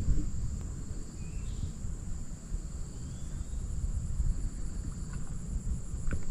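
Wind rumbling on the microphone under a steady high-pitched insect drone, with a faint chirp or two.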